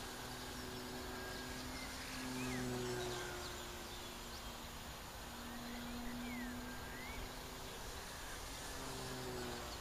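Small electric RC plane's brushless motor and propeller (a 1000 kV Turnigy outrunner on a 9x6 prop) heard at a distance as a faint steady hum that swells and fades as the plane flies around, loudest about three seconds in and again around six seconds.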